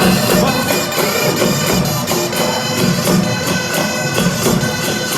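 Assamese Bihu music played live: dhol drums beating a steady rhythm while pepa hornpipes hold sustained, reedy notes over them.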